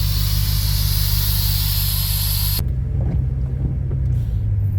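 Air hissing steadily out of a tire valve as the tire is let down to off-road pressure, over an idling engine. A little past halfway the hiss cuts off abruptly and a low vehicle rumble carries on.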